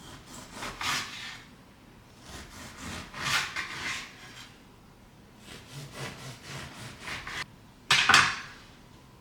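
Several bouts of rubbing or scraping strokes on a hard surface. The last bout starts suddenly and is the loudest.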